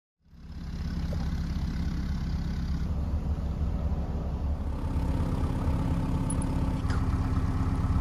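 Narrowboat's diesel engine idling steadily with a low throb, fading in at the start.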